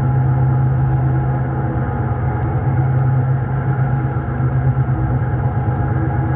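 Diesel locomotive engine sound from an HO-scale model's sound effects, a steady low drone running evenly. A faint short hiss comes about a second in and again near four seconds.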